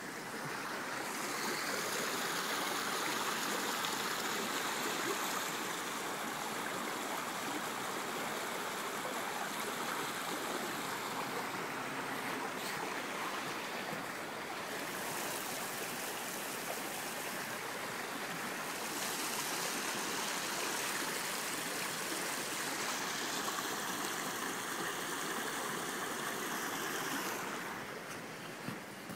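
Creek water rushing steadily, a continuous hiss that swells about a second in and drops back near the end.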